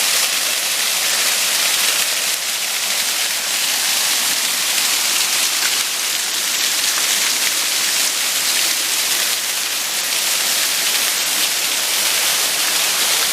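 Small mountain waterfall pouring steadily, a loud even hiss of falling water, running with more water than expected.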